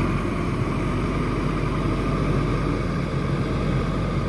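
JCB TM telescopic wheel loader's diesel engine running steadily, a continuous mechanical drone.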